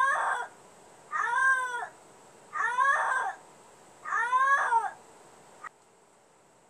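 Domestic cat meowing loudly over and over: four long, drawn-out meows about a second and a half apart, each rising and then falling in pitch. A short chirp follows before the sound cuts off abruptly.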